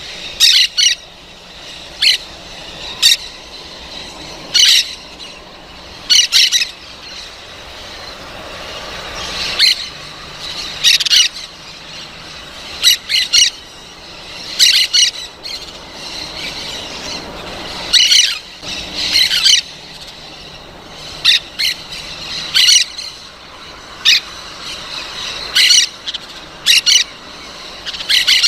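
Parrot squawking: short, harsh calls repeated every second or two, some in quick pairs or triples, with a cluster of calls about two-thirds of the way through.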